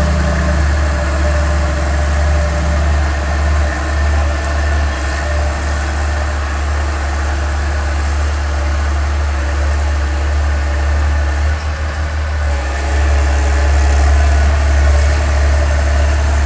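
Komatsu excavator's diesel engine running steadily at idle after standing unused for a long time. It falters briefly about twelve seconds in, then runs a little louder.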